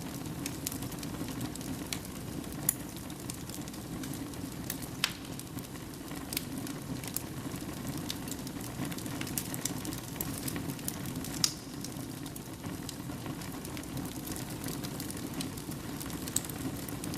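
Wood fire crackling in a fireplace: a steady low rush of flame with irregular sharp snaps and pops, the loudest one about eleven seconds in.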